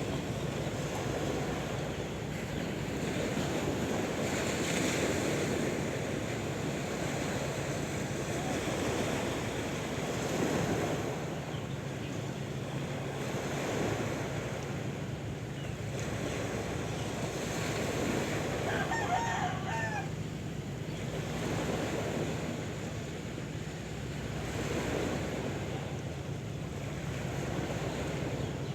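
Sea waves surging on a shore, a steady rolling wash of surf, with a rooster crowing briefly about two-thirds of the way through.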